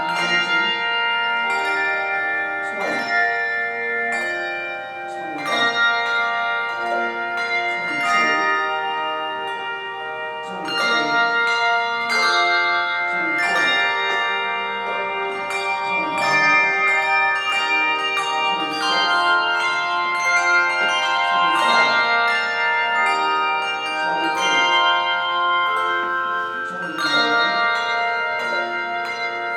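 A handbell choir playing a piece. Handbells are struck singly and in chords, and each note rings on under the next.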